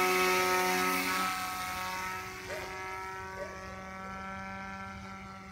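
Electric motor and propeller of a foamboard flying-wing model plane running at full throttle: a steady buzzing whine that fades gradually as the plane flies away.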